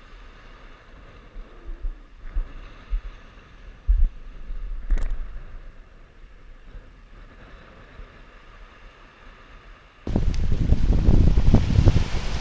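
Faint, muffled wind with a few soft knocks and a click. About ten seconds in, it switches suddenly to loud wind buffeting the microphone, with waves washing over the rocks.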